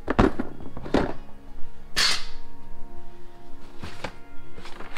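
Background music playing steadily, over several sharp knocks and clatters of plastic parts-organizer bins full of bolts being handled.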